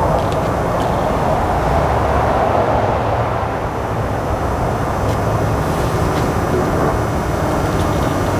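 Detroit DD15 inline-six diesel engine running at a steady speed, freshly overhauled with a new crankshaft, pistons and cylinder liners.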